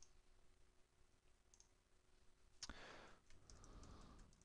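Near silence with faint computer mouse clicks and keyboard keystrokes: a sharper click near the three-second mark, then a few soft keystrokes.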